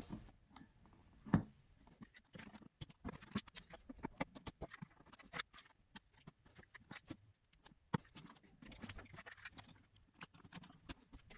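Faint, irregular small clicks and scratches of a bolt being worked in a stripped threaded shroud nut in a plastic dirt bike gas tank, with slightly sharper clicks about a second and a half in and again near eight seconds.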